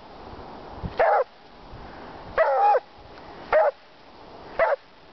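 A beagle barking four times, about once a second, each a short, pitched yelp, the second a little longer and wavering. These are excited barks at a frisbee held up, waiting for the throw.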